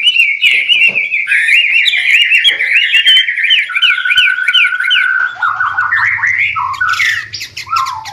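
White-rumped shama singing a fast, varied song: rapid runs of repeated chirping notes, a held whistle about halfway, then lower slurred notes.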